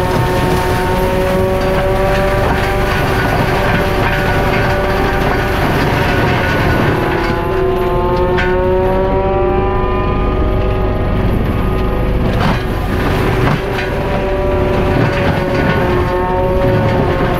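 CAT 259D3 compact track loader driving an FAE forestry mulcher, its engine and rotor running with a steady whine. About seven seconds in the pitch sags as the mulcher takes on a load of brush, then climbs back over the next few seconds, with a couple of sharp knocks of material hitting the head.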